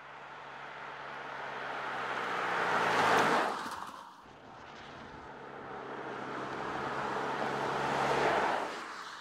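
Mercedes E 220d 4Matic passing by twice, each time a rush of tyre and engine noise that builds as the car approaches and falls away quickly as it goes past. A steady low hum from its 2.0-litre four-cylinder diesel runs under the tyre noise.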